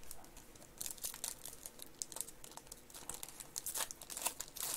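Foil trading-card pack wrapper crinkling in quick, irregular crackles as it is torn open and crumpled by hand. The crackling starts about a second in.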